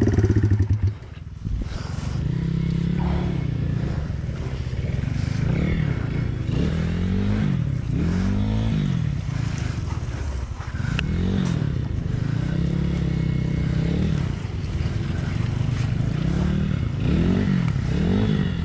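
Pit bike engine running steadily, then dropping off suddenly about a second in and being revved up and down again and again, the pitch rising and falling with each blip of the throttle.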